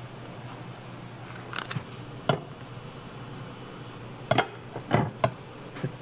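A handful of short, sharp knocks and clacks from food preparation, such as utensils or a knife against a board or bowl, spread over the second half, over a steady low hum.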